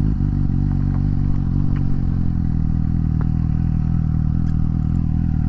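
Suzuki GSX-S750's inline-four engine running steadily under a rider, its pitch shifting slightly in the first second or so and then holding even.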